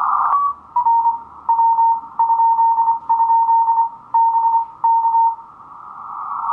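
A Drake R77 HF receiver playing a Morse code (CW) signal: a single beep keyed on and off in slow dots and dashes over band hiss squeezed into a narrow filter. The hiss dips while the tone sounds and rises again once the keying stops, about five seconds in.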